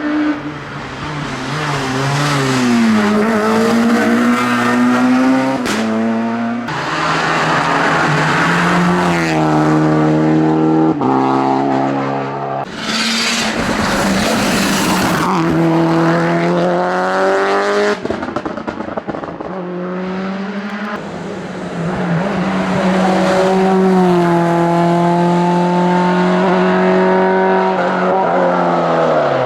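Race car engines at full throttle, pitch rising through each gear and dropping sharply at the shifts, several times over. A rush of broad noise comes about halfway through.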